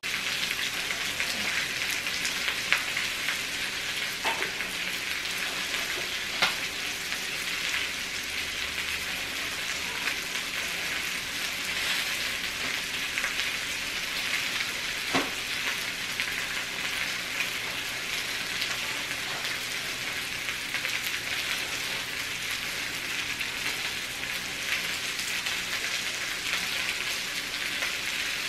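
Chicken thighs sizzling on an electric tabletop grill: a steady frying hiss, with a few sharp pops.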